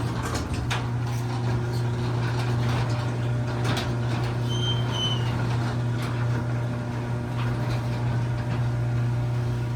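Electric garage door opener running as it lowers a sectional garage door: a steady motor hum with light rattling from the door's travel.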